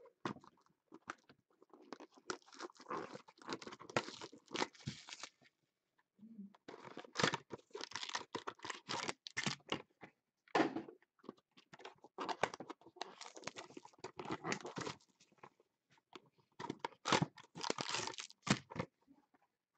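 Cardboard trading-card boxes being torn open and foil card packs crinkling as they are handled: irregular bursts of tearing and rustling with short pauses.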